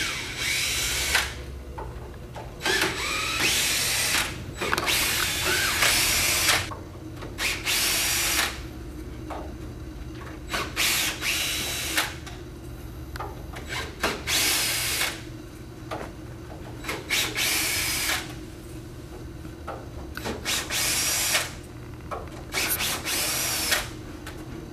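Cordless drill/driver backing out the 1-inch wood screws that hold a multi-point door lock in place. It runs in repeated short bursts of a second or two, one screw after another, with pauses between.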